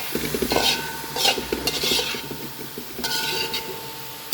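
A utensil scraping and stirring vegetables in a frying pan over a light sizzle, in repeated irregular strokes.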